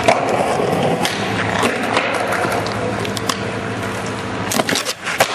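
Skateboard wheels rolling over rough concrete, a continuous gritty rumble, with a sharp clack at the start and a few sharp knocks of the board near the end.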